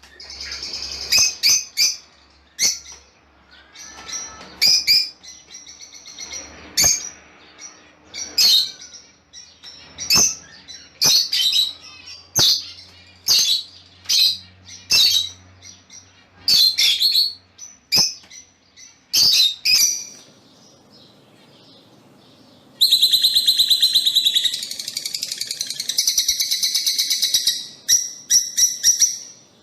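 Lovebirds calling: sharp, shrill chirps repeated one or two a second, then after a short lull a fast, continuous chattering trill for several seconds, followed by single chirps again.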